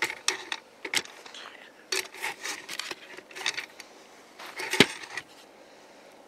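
Freight cars rolling past on the track: a run of irregular clicks, creaks and scrapes from the moving cars, with one sharp bang about five seconds in.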